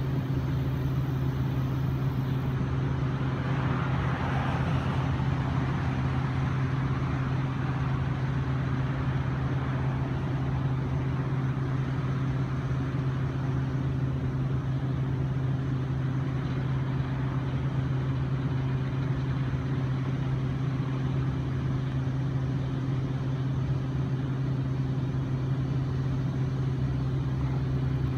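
A motor running steadily, a constant low hum with no change in pitch or level.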